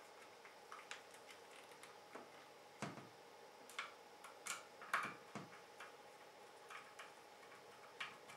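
About ten irregular light clicks and taps as small screws are handled and driven into the mounting holes of a graphics card fitted with a water block, a screwdriver ticking against screw heads and the circuit board.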